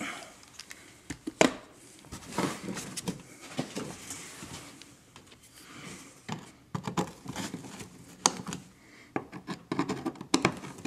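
Hand screwdriver working the fasteners of a car's belly pan: scattered clicks, knocks and scrapes of the tool and the panel, coming thickest in quick runs of clicks in the second half.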